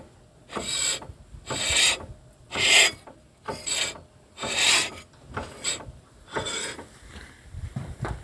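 Front brake disc on a 2001 Chevrolet Celta scraping against its pads as the raised wheel is turned by hand, a rasping rub about once a second. It is the sign of the pads dragging on the disc, which the owner takes for a brake caliper that pushes out and does not retract.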